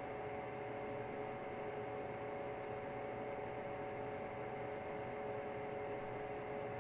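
Steady electronic drone: a hum holding a few fixed tones, with a hiss of static under it, unchanging throughout.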